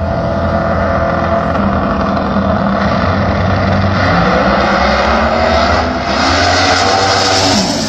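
Two no-prep drag race cars running hard down the strip, a loud, steady engine racket with the pitch shifting near the end.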